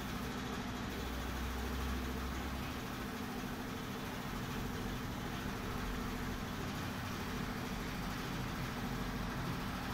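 Steady low engine hum over an even background noise, running on without change.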